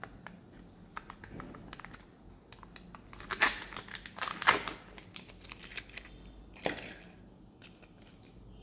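A Kinder Joy egg's foil wrapper being crinkled and torn open by hand. There are scattered small clicks and rustles, a loud run of crinkling and tearing about three to five seconds in, and a shorter crinkle near seven seconds.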